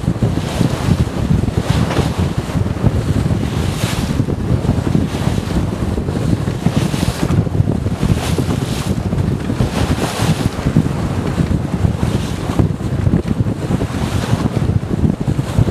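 Wind buffeting the microphone on a sailboat under way in strong wind, with water rushing and hissing past the hull in surges every second or two.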